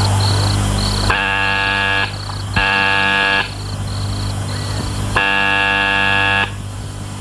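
Electric doorbell buzzer pressed three times: two buzzes of about a second each, then a longer one. Crickets chirp steadily behind it.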